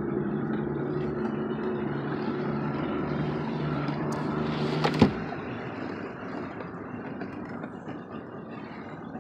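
Boat motor running steadily at low speed, then stopping about five seconds in, just after a rustle and a sharp knock; a faint steady hiss remains.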